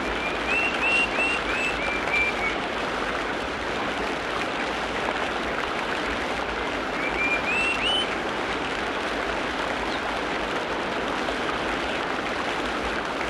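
Steady rain falling, with a bird singing twice over it: a quick run of short whistled notes near the start, and another run of notes rising in pitch about halfway through.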